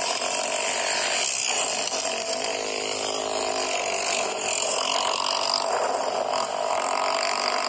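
Motor scooter engines running and revving on open sand, with one engine note rising briefly about two and a half seconds in.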